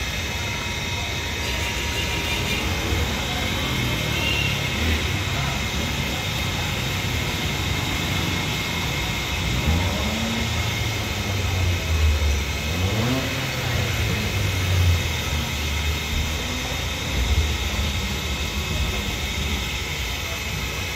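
Street traffic: motorcycle and other vehicle engines running and passing, with engine notes rising in pitch a few times around the middle. Under it is a steady hiss of chicken deep-frying in a wok of oil.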